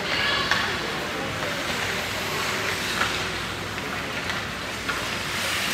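Ice hockey rink during play: a steady rushing noise of skates on the ice, faint distant shouts, and three sharp clacks of sticks and puck about half a second, three and five seconds in.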